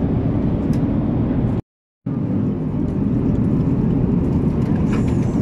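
Steady cabin noise of a jet airliner in flight: a low, even rush of engines and airflow heard from a passenger seat. It cuts out completely for under half a second a little before two seconds in, then resumes.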